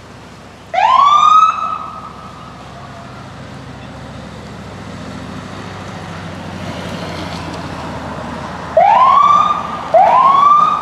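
Emergency vehicle siren: one rising wail about a second in, then two short rising whoops near the end. A low engine hum grows slowly louder in between.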